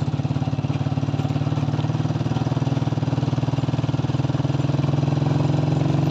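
Motorcycle engine running steadily while riding, an even, rapid throb that holds the same pace throughout.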